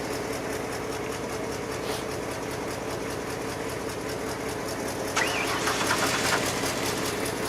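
2000 Ford Explorer engine idling with a fast, even pulse, getting louder about five seconds in. The idle won't hold steady, which the owner thinks is a failing fuel pressure regulator.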